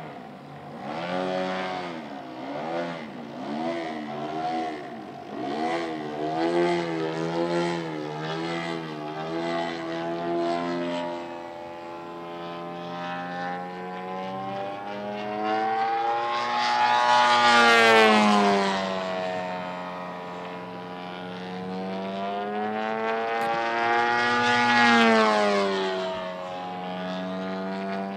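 A radio-controlled 3D aerobatic airplane's engine and propeller running in the air. The pitch rises and falls about once a second as the throttle is worked, then swells twice in pitch and loudness, the first and loudest about two-thirds of the way in and the second near the end.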